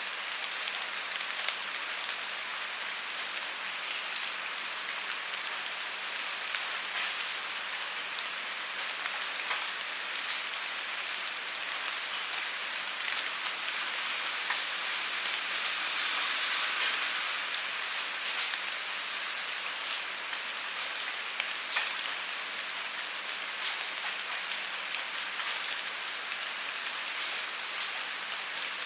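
Steady rainfall: a dense hiss of rain with scattered individual drops ticking through it, swelling briefly a little past halfway.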